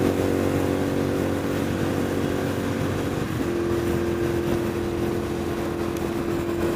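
Ducati Monster 696 air-cooled L-twin engine running at a steady highway cruise, over a constant rush of wind and road noise. About three seconds in, the engine note changes and settles into one steadier tone.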